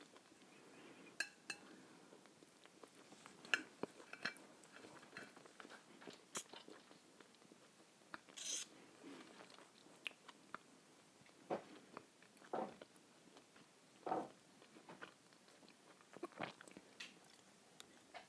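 Quiet, close-up chewing and mouth sounds of eating seeded bread topped with mackerel in tomato sauce, broken by scattered short clicks of a knife and fork against a plate.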